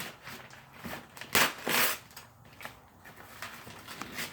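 Packaging being torn open and crumpled by hand: short rustling, ripping bursts, the two loudest close together about a second and a half in.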